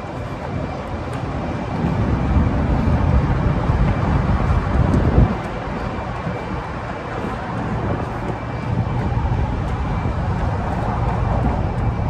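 Low rumble of wind buffeting the microphone of a handheld camera carried on a run, mixed with city traffic noise; it swells louder about two seconds in and eases off about five seconds in.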